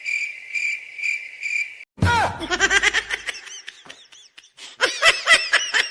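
Cricket chirping, a steady pulsed high tone, the stock 'awkward silence' sound effect. About two seconds in it gives way to a fast string of short, high, rising-and-falling squeaky chirps.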